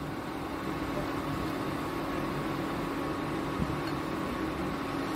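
Steady electric hum of a glass-top cooktop and its cooling fan running under a pan of simmering milk, with one soft tap about three and a half seconds in.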